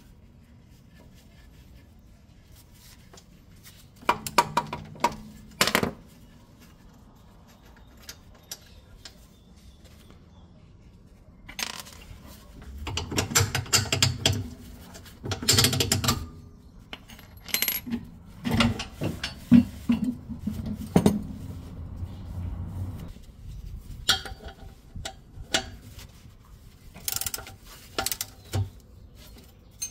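Metal tools and parts clinking and knocking in irregular clusters, with quiet stretches between.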